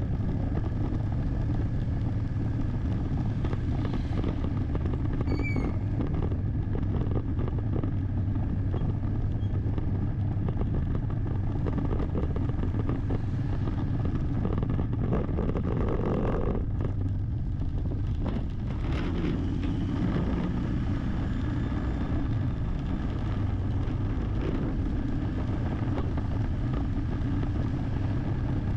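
Steady low rumble of engine and road noise from a vehicle being driven, with a brief high chirp about five seconds in.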